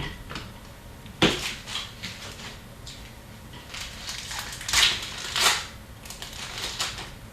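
Hockey card packs and cards being handled: a few short crinkling, rustling bursts of wrapper and card stock, the loudest about a second in and twice around the five-second mark.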